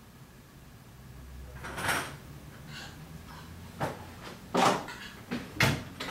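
A door opening about two seconds in, then several sharp knocks and clunks of objects being handled and set down, the loudest a little past four and a half seconds in.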